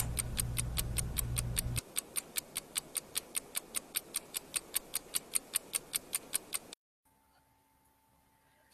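Stopwatch ticking, about five even ticks a second, over a low music bed that stops about two seconds in. The ticking cuts off sharply near the end and gives way to a faint steady hum.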